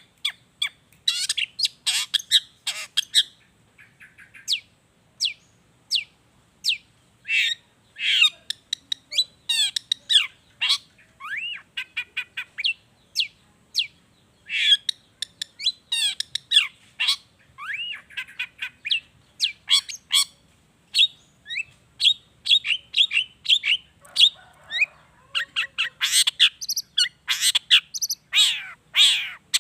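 Long-tailed shrike (cendet) singing a fast, varied song stuffed with mimicked calls of other birds: a rapid stream of sharp chirps, quick downward sweeps and harsher squawky notes, a few per second without pause, with louder clusters near the end.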